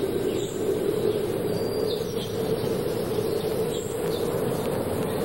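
Steady droning hum with scattered small bird chirps over it, a woodland ambience laid under the scene.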